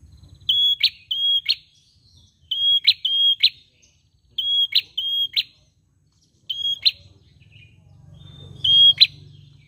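Prenjak singing: short, steady, high whistled notes, each ending in a sharp click. They come mostly in pairs, about four groups with pauses between them.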